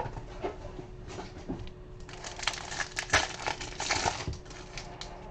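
Foil trading-card pack wrapper crinkling as it is torn open, with small clicks of cards being handled; the crinkling is busiest in the middle. A faint steady hum runs underneath.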